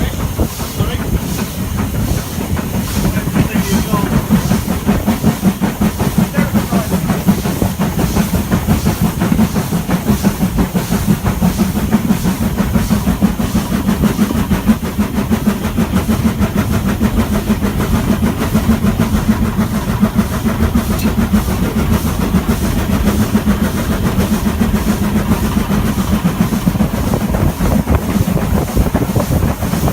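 Stanier 8F 2-8-0 steam locomotive on the move: a loud, steady rumble of wheels on rail with clickety-clack and steam hiss, unbroken throughout.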